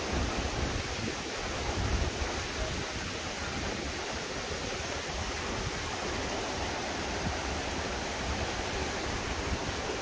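Rocky mountain stream rushing over boulders in small rapids: a steady wash of running water.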